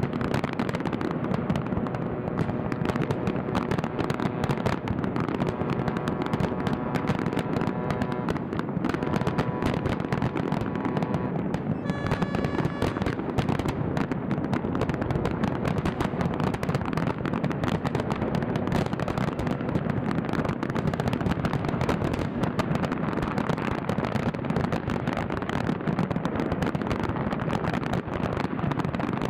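Large New Year fireworks display going off without a break: a dense, continuous crackle and banging of aerial shells. Faint steady tones run underneath for the first ten seconds or so.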